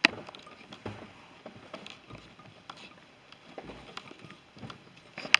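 Handheld camera handling noise and soft footsteps: a sharp click at the start and another just before the end, with scattered quiet knocks and a few dull low thumps in between.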